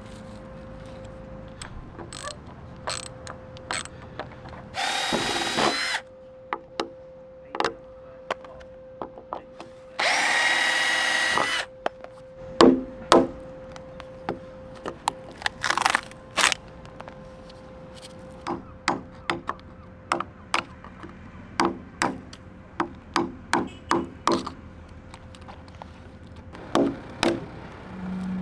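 Power drill running in two short bursts with a whining motor, between scattered sharp knocks and clicks of tool work on wood.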